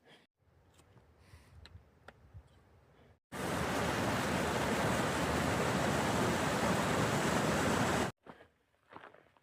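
Loud steady rushing of water, starting abruptly about three seconds in and cutting off abruptly near the end; before it, only faint scattered clicks and rustles.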